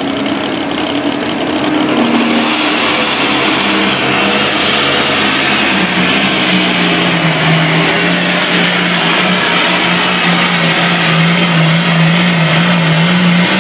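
Engine of a tractor-pull vehicle running at full throttle under load as it drags the sled down the track. A loud, steady drone whose pitch drops slightly about halfway through, then wavers.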